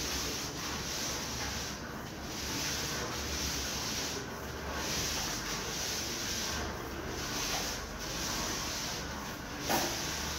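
A 36 cm wool paint roller with an 18 mm nap rolling wet paint over a smooth wall: a sticky, rasping hiss that swells and eases with each stroke, about every second or two, as the paint is spread thin. A short knock sounds near the end.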